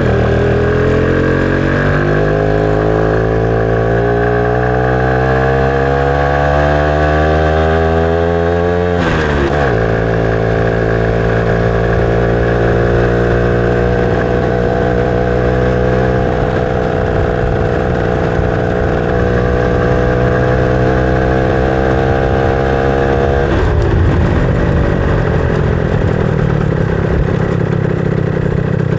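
Motorcycle engine under way. Its pitch rises steadily for about nine seconds as it pulls through a gear, drops sharply at a gear change, then holds steady while cruising, and falls away near the end as the throttle is closed and the bike slows.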